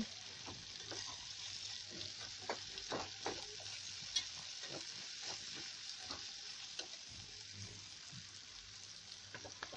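Chicken strips, onions and bell peppers sizzling in a metal pan over high heat, with a metal slotted spatula scraping and clicking against the pan as they are stirred. The stirring stops near the end, leaving the steady sizzle.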